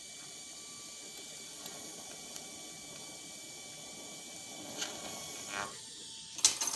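Steady faint hiss, then a short burst of crackling and a sharp click near the end: a quick weld tack laying filler metal into a gap.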